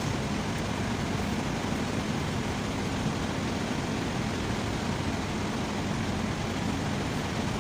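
Steady low rumbling background noise, constant in level, with no distinct knocks or clicks.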